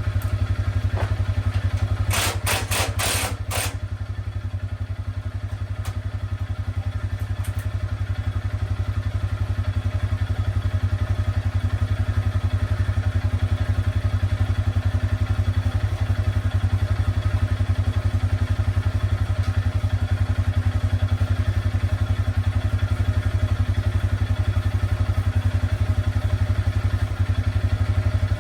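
An engine running steadily at idle with an even low drone. A quick cluster of sharp metallic clanks comes about two to three seconds in.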